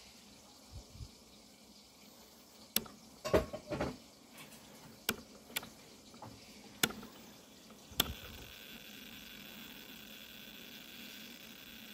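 Rotary range selector switch on a dosimeter being turned by hand, clicking through its detent positions: a cluster of sharp clicks a few seconds in, then single clicks spaced about half a second to a second apart. After the last click, about eight seconds in, a faint steady buzz sets in.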